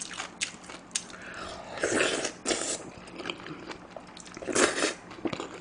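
Close-up mouth sounds of a person eating seaweed from seaweed soup: chewing with small wet clicks, and louder slurps about two seconds in and again near the end.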